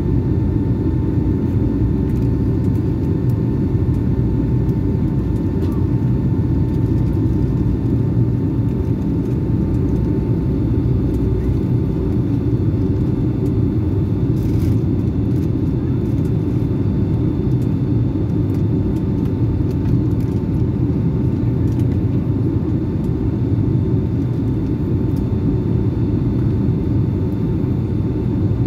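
Steady low roar of a Boeing 757-200's engines and rushing air, heard from inside the passenger cabin, with a faint steady hum above it.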